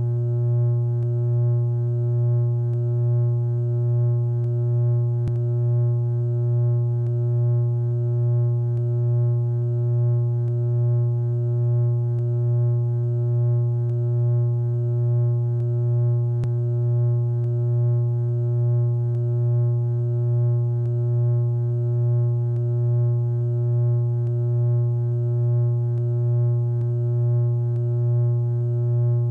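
Electrical power-line hum sound effect: a low, steady hum with a stack of overtones that swells gently about once a second. Two faint clicks come through, one about five seconds in and one near the middle.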